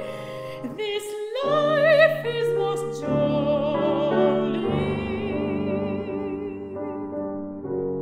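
Classical soprano singing a sustained phrase with wide vibrato over grand piano chords. The voice drops out near the end, leaving the piano chords alone.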